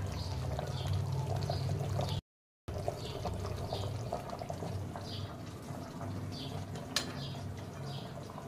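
Doi maach, a thick yogurt fish curry, being ladled and poured from a wok onto a steel plate, with liquid pouring over a steady low hum. The sound drops out for a moment about two seconds in, and there is one sharp click near the seventh second.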